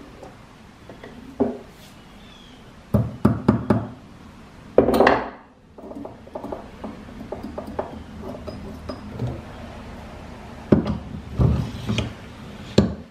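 Metal parts of a Pickering steam engine governor being handled and fitted together: scattered clinks and knocks, with a longer, louder clatter about five seconds in and another group of knocks near the end.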